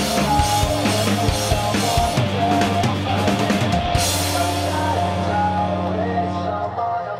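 Rock music with a drum kit keeping a steady beat over held bass and instrument notes.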